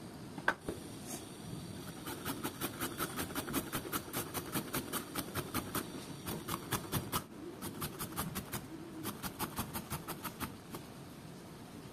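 Unripe papaya being grated on a metal box grater: quick, regular rasping strokes, about four or five a second, with a short break partway through. A single sharp knock about half a second in.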